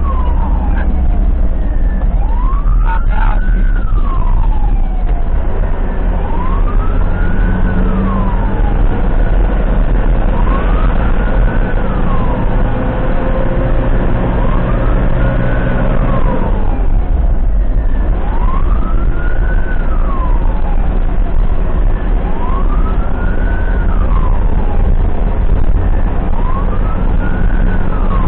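Ambulance siren on a slow wail, its pitch rising and falling in a cycle about every four seconds, over the steady low rumble of the ambulance's engine and road noise.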